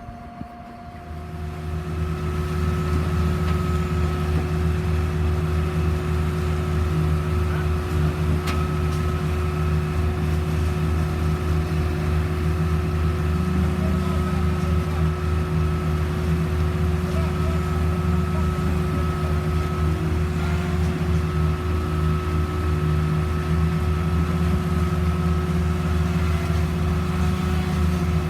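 Concrete pump's engine running steadily during a slab pour: a loud, even low hum with a steady high whine over it, coming up about a second in.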